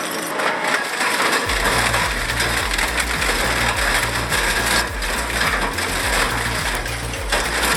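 Hammel VB950DK slow-speed twin-shaft shredder crushing and tearing scrap metal: a continuous dense crackle of cracking, snapping and grinding metal.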